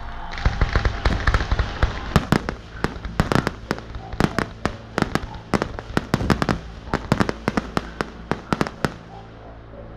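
Fireworks bursting: a rapid, irregular run of sharp bangs and crackles that starts about half a second in and thins out near the end.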